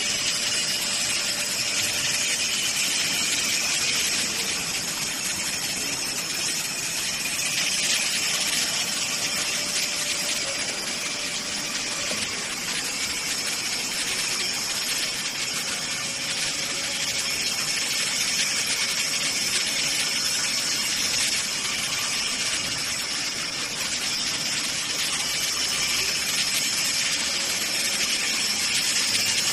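Electric pallet stacker's hydraulic pump motor running steadily as it raises the forks up the mast, a continuous hum with a hiss.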